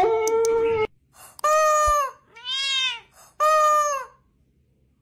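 A dog howls, cut off just under a second in. Then a squeezed rubber chicken toy squawks twice, with a cat meowing back between the two squawks.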